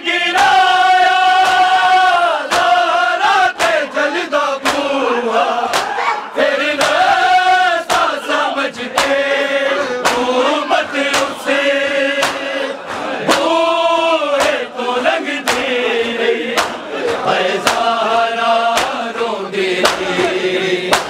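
Men chanting a Punjabi noha, a Shia lament, in a slow, long-held melody, over a steady rhythm of sharp slaps from mourners beating their chests (matam).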